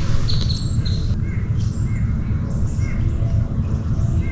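Wild birds calling: a run of short, clear notes about twice a second, higher-pitched at first and lower from about a second in, over a steady low rumble.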